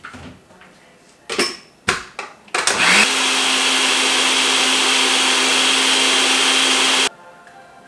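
Blender: a few clicks, then the motor spins up and runs loud and steady for about four seconds before cutting off suddenly.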